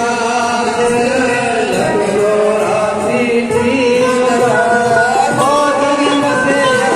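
Devotional singing with music, the voices holding long notes that slide from one pitch to the next.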